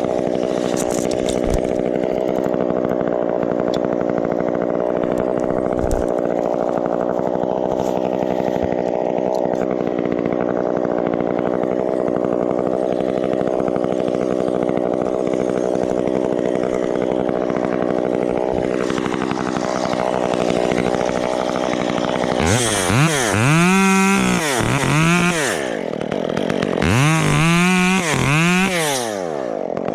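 Chainsaw running steadily, its pitch sagging after about twenty seconds, then opened up to full throttle twice near the end, each burst about three seconds long with the pitch rising and falling.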